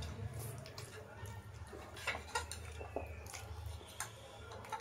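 Eating black bean noodles: forks clinking and scraping against china plates in scattered short clicks, with slurping and chewing of the noodles, over a low steady hum.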